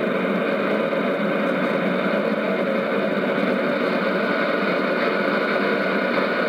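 Steady shortwave static and hiss from a JRC NRD-525G communications receiver tuned to 5940 kHz in AM, with faint steady tones in the noise and no programme coming through.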